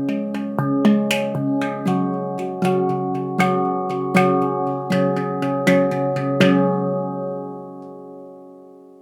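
Handpan tuned to a C# Ragadesh scale, played as a melody of single struck notes at an even pace. The notes stop about two-thirds of the way through, and the last ones ring on and slowly fade.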